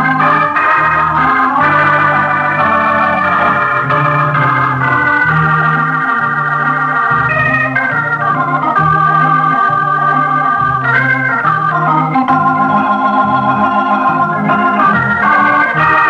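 Organ playing a melody over a bass note that repeats about once a second: the program's closing music.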